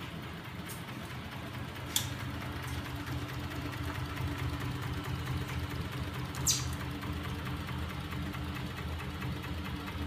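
Homemade magnet engine rig running: small 12 V electric motors turning magnet-coupled crankshafts, a steady mechanical hum and rattle that grows slightly louder after about two seconds. Two sharp clicks stand out, about two seconds and six and a half seconds in.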